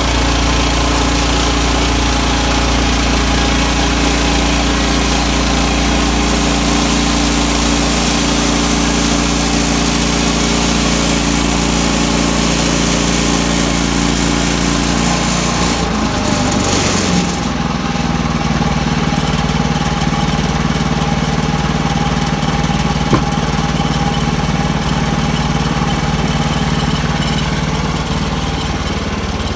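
Sawmill's gasoline engine running steadily, its pitch dropping about halfway through and then holding.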